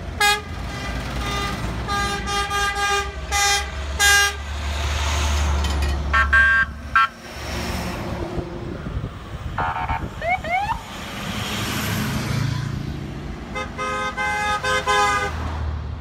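A line of tow trucks driving past, sounding their horns in repeated short blasts over a low rumble of truck engines. A few quick rising whoops come a little past halfway.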